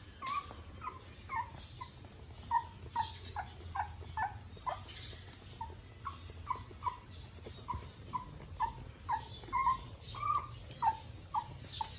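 Nursing puppies squeaking and whimpering while they suckle: a run of short, high squeaks at about two a second.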